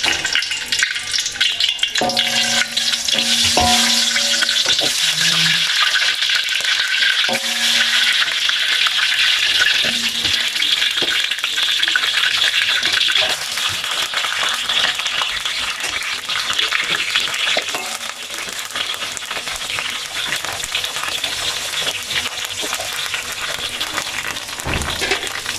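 Shallots, garlic and red chillies sizzling steadily as they fry in hot oil in a metal wok.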